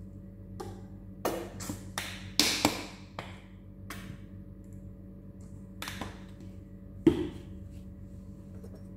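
A plastic squeeze bottle of mayonnaise being shaken and squeezed, giving a run of short taps, knocks and sputtering squirts, most of them clustered in the first three seconds. A single sharp knock comes about seven seconds in.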